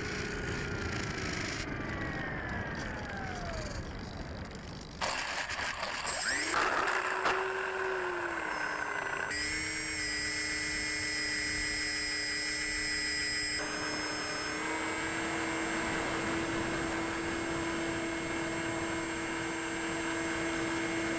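Electric motor and propeller of a Bixler 3 foam model plane, heard on board in flight. Its pitch falls steadily as the throttle comes off over the first few seconds. About five seconds in it throttles up with a sudden rise and a short upward glide, then runs at a steady whine with air rushing past.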